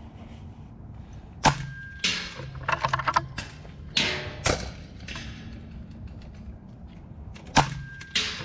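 Two shots from an FX Impact M3 PCP air rifle in .22 (5.5 mm), about six seconds apart. Each is a sharp crack followed about a second later by a quick run of clicks. Two more sharp cracks come about four seconds in.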